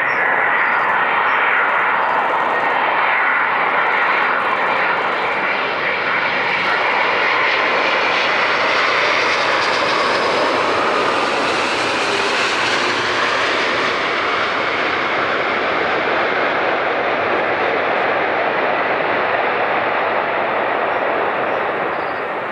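Airbus A350's Rolls-Royce Trent XWB turbofans running as the airliner lands and rolls out along the runway: a loud, steady jet roar that grows brighter toward the middle as it passes nearest, then slowly fades near the end.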